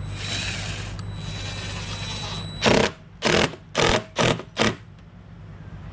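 Power drill or driver run in five short, loud bursts, driving a hinge screw that spins in its stripped hole instead of tightening.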